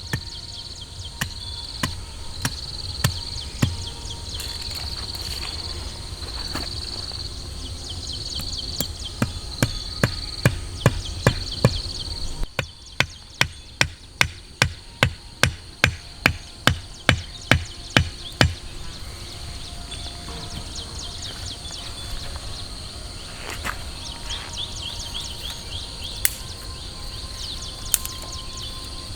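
Insects chirping and trilling in a high, pulsing chorus, with scattered sharp clicks. Midway comes a run of about fifteen loud, evenly spaced knocks at two to three a second, like chopping or hammering.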